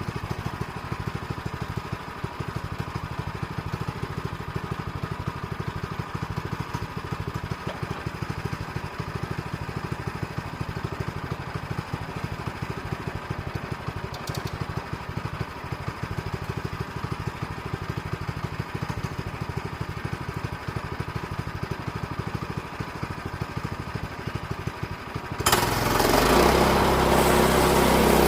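An engine idles steadily with a rapid even beat. About 25 seconds in it suddenly gets much louder and runs at a higher speed.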